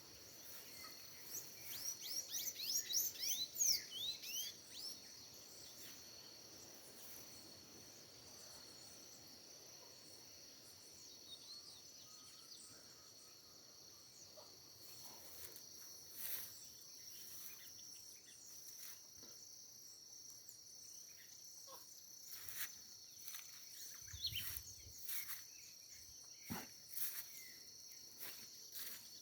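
Insects trilling in a steady, high, continuous drone, with a quick run of bird chirps in the first few seconds and scattered short bird calls and clicks later on.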